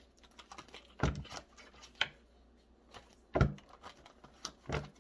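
Tarot cards being shuffled and handled: a few irregular short taps and slaps of the cards.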